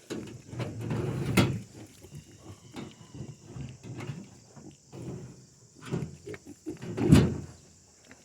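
Pigs grunting and jostling at their feed, a run of short, irregular low grunts, with two sharp knocks, one about a second and a half in and a louder one near the end.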